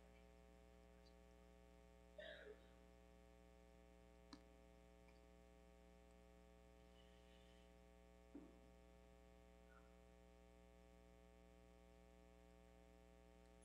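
Near silence: a steady electrical hum, broken only by a few faint small sounds, a brief noise about two seconds in, a tiny click, and a soft knock about eight seconds in.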